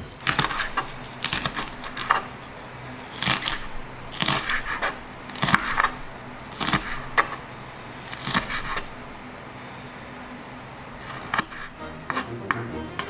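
Kitchen knife slicing green onion on a wooden cutting board: crisp cuts in short runs, with a pause of about two seconds shortly before the end.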